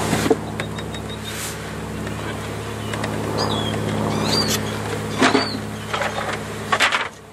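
A steady low hum runs under a few sharp knocks of wooden beehive boxes being handled, with the last knocks coming in a quick cluster near the end. A few short bird chirps come in the middle, and the hum drops sharply just before the end.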